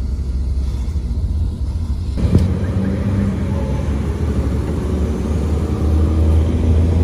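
Car engine and road rumble heard from inside a moving car, a steady low drone. The noise turns abruptly fuller about two seconds in, with a single knock just after.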